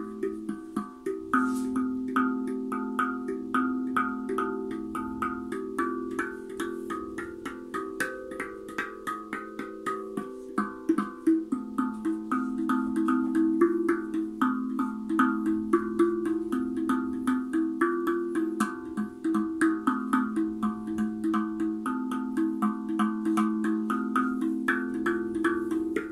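Guda Freezbee tuned steel hand drum played with the fingertips: a continuous run of quick taps, several a second, each note ringing on and overlapping the next.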